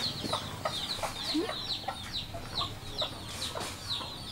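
Chickens clucking and peeping: a steady run of short, high, falling chirps several times a second, mixed with lower clucks.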